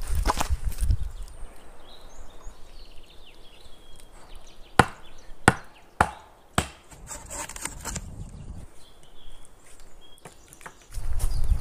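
Wood knocking on wood while a lashed pole-and-log frame is worked on: four sharp knocks about half a second apart in the middle, with low rustling thumps at the start and again near the end.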